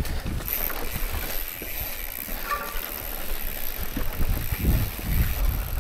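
Mountain bike riding down a rough, dry trail: the tyres rumble over grass, dirt and rock, and uneven thumps and rattles come from the bike as it hits bumps. There is a brief squeak about two and a half seconds in.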